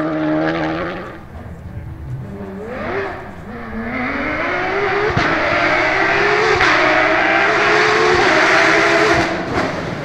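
A rally car's engine fading as it drives away, then a Porsche 991 GT3 rally car's flat-six coming closer at full throttle, revs climbing and dropping back through several upshifts, loudest near the end.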